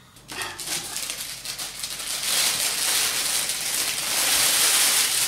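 Clear plastic roasting sleeve crinkling and crackling as a stuffed pumpkin is put into it, a dense rustle that grows louder about two seconds in.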